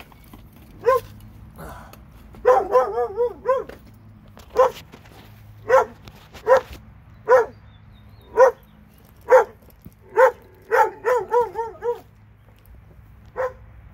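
A dog barking over and over: single barks about a second apart, broken by two quick runs of several barks in a row.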